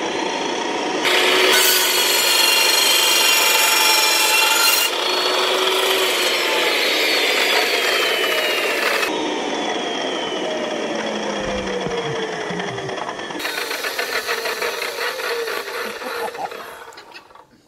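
Electric chop saw running, its blade cutting into a fully charged LiPo battery with a loud grinding rasp. About five seconds in the motor is cut and its pitch falls slowly as the blade spins down, while the punctured battery vents thick smoke with a crackling hiss near the end.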